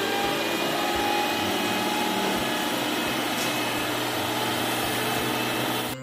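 Diesel engine of a heavy dump truck running steadily, a constant low hum under a broad, even rushing noise.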